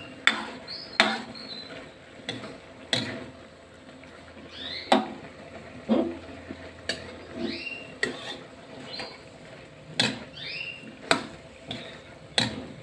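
Metal ladle knocking and scraping against a wok while stir-fried choy sum and tofu are turned over, roughly one clatter a second, several strokes drawn out into short rising scrapes of metal on the pan.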